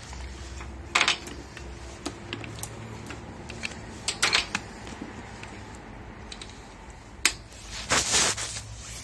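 Scattered sharp clicks and knocks from handling the opened electric insect-killer lamp and its parts during repair, with a cluster near the middle and the loudest ones near the end, over a low steady hum.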